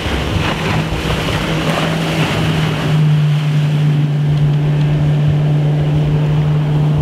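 Outboard motorboat running at planing speed: a steady engine drone that grows louder about three seconds in, over the rush of water spray and wind noise.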